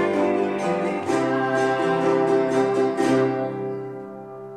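Ukuleles strumming over piano and bowed cello in the closing bars of a song. The strumming stops about three seconds in, and the final chord rings on and fades away.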